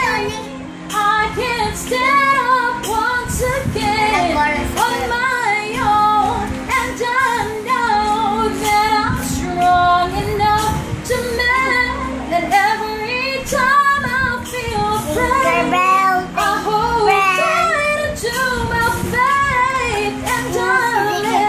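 A woman singing a slow ballad with wavering, held notes, over steady backing music.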